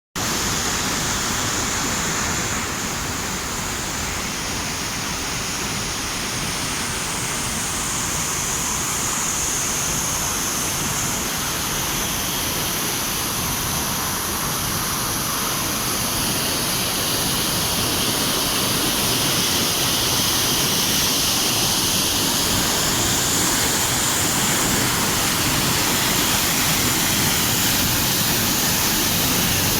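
Waterfall: a steady rush of falling water that grows slightly louder over the second half.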